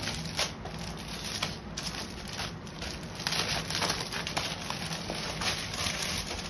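Hands handling children's frocks and their crumpled packing material: irregular rustling and crinkling with short crackles and scrapes.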